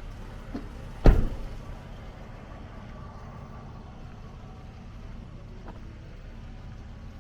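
A vehicle door slams shut once, sharply, about a second in, over a steady low rumble.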